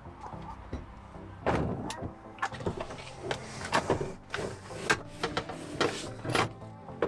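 A VW T6 front seat knocking and clunking as it is manoeuvred through the cab door and set down onto its base: about ten sharp knocks spread over several seconds, starting about a second and a half in.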